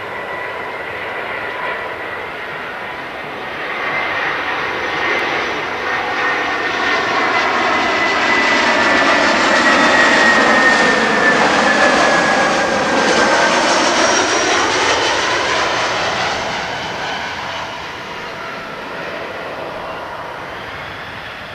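Airbus A320-200 twin jet engines at approach power as the airliner flies low overhead on final approach: a rushing jet noise with a high whine that grows louder, peaks about halfway through, then drops in pitch and fades as the aircraft moves away toward the runway.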